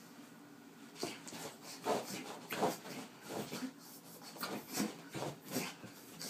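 A pug puppy moving about on carpet: a run of short, irregular scuffing, rubbing sounds that begins about a second in.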